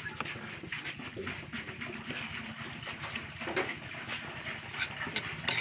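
Metal spoon scraping and clinking against a plate while eating: a scatter of short, light clicks over a low steady hum.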